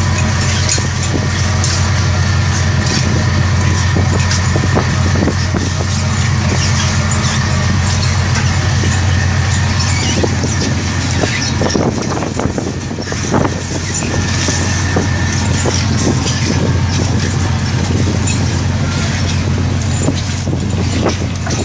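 Steady low drone of a squid-fishing vessel's engines and deck machinery, with scattered clicks and knocks on top.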